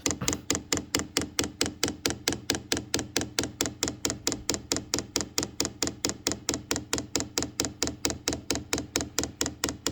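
Chinese diesel heater's fuel dosing pump ticking steadily at about five clicks a second while priming, drawing diesel up the fuel line.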